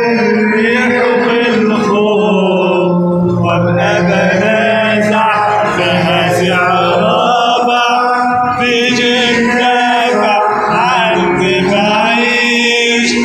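A man singing an Arabic Christian hymn into a microphone, in long, drawn-out melodic phrases.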